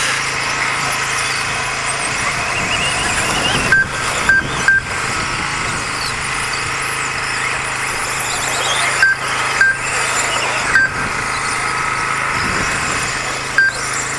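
Electric 1/10-scale 2wd RC buggies racing: a steady high whine of motors and tyres, with seven short beeps from the lap-timing system as cars cross the line, three close together about four seconds in, three more around ten seconds in, and one near the end.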